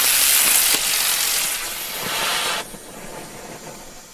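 Pyrogiochi Slimer, a small Category 1 ground-spinner firework, hissing loudly as it burns and sprays sparks across the paving. About two and a half seconds in, the hiss drops sharply to a quieter hiss.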